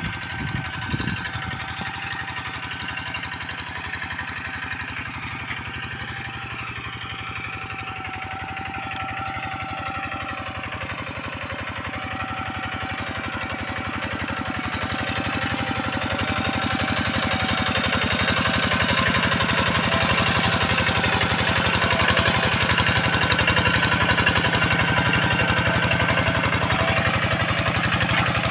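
Hand tractor's single-cylinder diesel engine running steadily while ploughing a dry field, growing louder from about halfway through.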